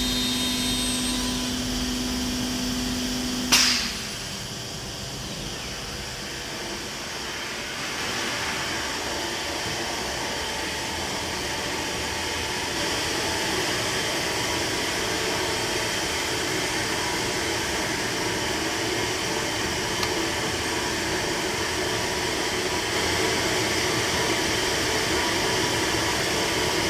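Biesse CNC machining centre: a steady pitched hum cuts off with a sharp click about three and a half seconds in, leaving a steady rushing machine noise that slowly grows louder.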